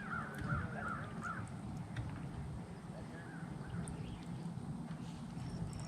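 A bird calling in a quick series of short, repeated notes over the first second and a half, then once more faintly around the middle, over a low steady hum.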